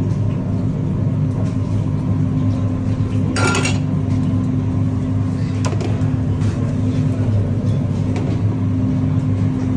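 Steady loud hum and rumble of commercial kitchen machinery, typical of an extractor hood fan, with a short clatter about three and a half seconds in.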